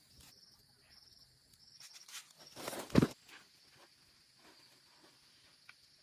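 Insects trilling in steady high-pitched pulses. A close rustle builds to one loud thud about three seconds in.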